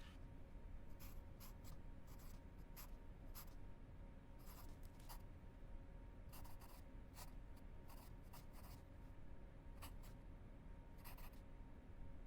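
Faint, irregular scratching and rubbing noises over a faint steady hum.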